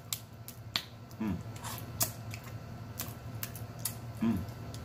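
Snow crab leg shells cracking and clicking in the hands as the meat is worked out, a scattered series of sharp snaps and clicks, with two brief hums from the eater about a second in and near the end.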